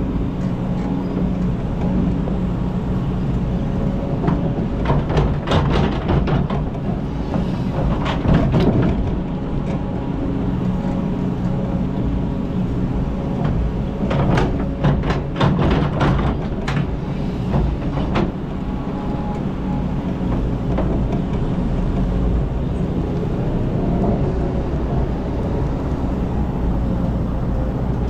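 Kobelco hydraulic excavator's diesel engine running steadily under hydraulic load. There are two bouts of scraping and clattering as the bucket digs into stony ground and rocks knock against it, a few seconds in and again midway.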